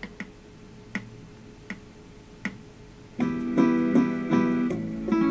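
Four evenly spaced clicks, about 80 to the minute, count in the beat. A little over three seconds in, a ukulele starts strumming an E minor to A chord pattern.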